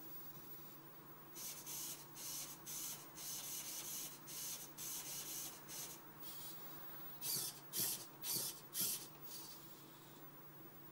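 Dynamixel servo motors of a small quadruped robot whirring in short bursts, about two to three a second, as the legs move. About seven to nine seconds in the bursts turn louder, with sharper knocks.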